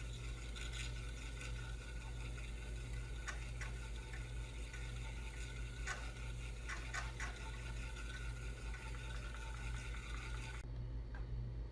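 IBM 5150 personal computer running with a steady low hum and hiss from its power supply fan and drives while it boots from floppy. A few faint, scattered clicks sound over it.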